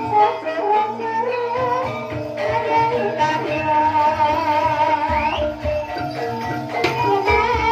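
Traditional percussion-led music: drum strokes under a sustained, wavering melody line that rises and falls in pitch.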